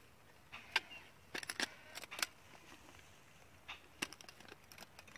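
Stainless steel tiffin containers and their lids clinking and clicking as they are opened and handled: a scatter of light metallic clicks, in quick clusters in the first half.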